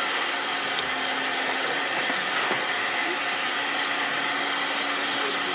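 Steady hiss of steam from a standing steam locomotive, even in level throughout, with a faint low hum beneath it.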